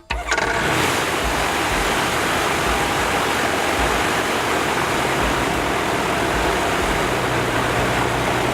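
Sting light-sport airplane in flight: a loud, steady rush of engine, propeller and wind noise that starts suddenly.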